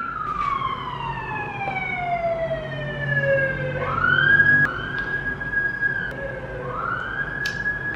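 Emergency vehicle siren wailing: a long slow fall in pitch, then two rises that each hold high for a second or two before dropping again.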